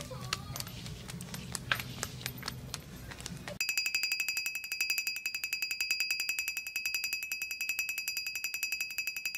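Scattered light clicks over a low hum. About three and a half seconds in, a steady, rapid, high-pitched trilling ring like an alarm clock or phone bell starts and keeps going.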